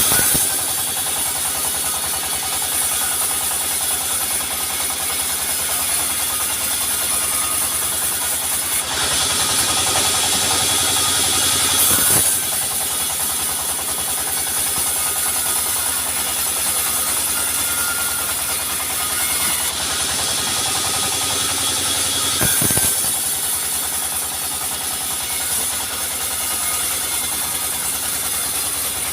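Sawmill machinery running: a steady engine drone with a constant high hiss, which grows louder for two stretches of about three seconds each, with a short knock at the end of each.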